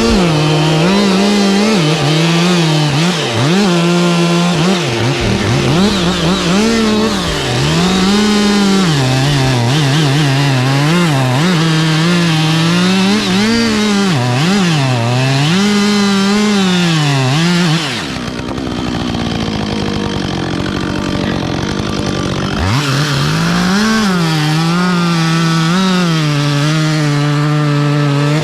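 Two-stroke chainsaw cutting into a tree trunk, its engine pitch rising and falling as the bar loads up in the wood. About 18 s in it drops back for a few seconds, then revs up and cuts again.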